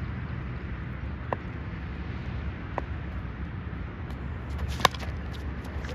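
Steady low outdoor rumble, like wind on the microphone or distant traffic, with a couple of faint sharp clicks and one louder sharp crack near the end.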